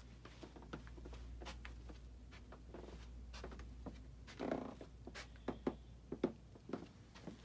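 Quiet room tone with a low hum, broken by scattered soft clicks, taps and rustles of a handheld phone being moved and handled while walking. The loudest is a brief rustle about four and a half seconds in, followed by a few sharper clicks.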